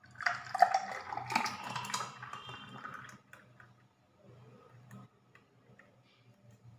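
Thick banana milkshake poured in a stream into a glass, splashing loudly for about the first three seconds, then going on as a fainter trickle once the glass is nearly full.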